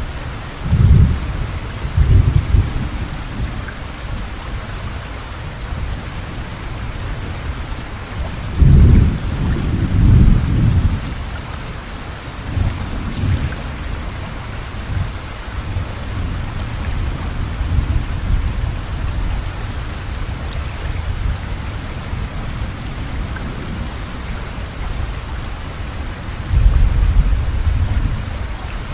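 Steady rain falling, with low rumbles of thunder rolling in several times: twice near the start, a longer one about a third of the way in, and again near the end.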